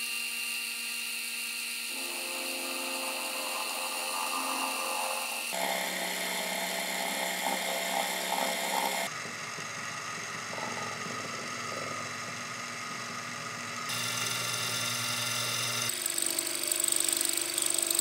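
Bench drill-mill running an end mill through a steel tube: a steady machine whine with cutting noise. The tone jumps abruptly several times.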